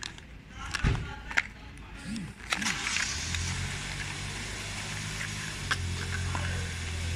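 Small cardboard spark plug boxes handled and pulled from a packed carton: a few sharp taps and scrapes of cardboard in the first three seconds. About three seconds in, a steady low mechanical hum sets in and holds.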